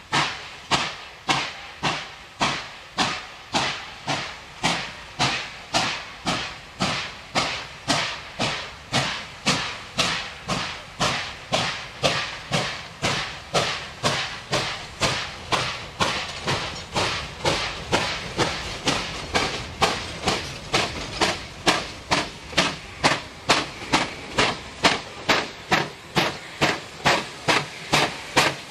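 Steam locomotive 3801, an NSW 38 class Pacific, working hard under load: a steady run of sharp exhaust beats that slowly quicken from about two to about three a second. Steam hisses from the open cylinder drain cocks.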